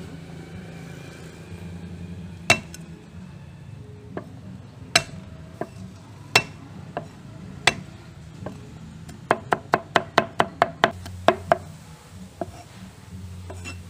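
Steel cleaver chopping garlic on a thick round wooden chopping block. First come single sharp knocks a second or so apart as the cloves are cut, then, about nine seconds in, a quick run of about ten chops at roughly four a second as the garlic is minced.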